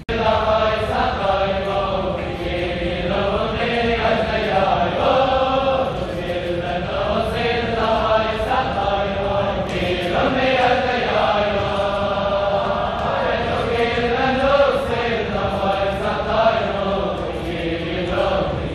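A large group of men singing a tune together in unison, with long held notes that rise and fall.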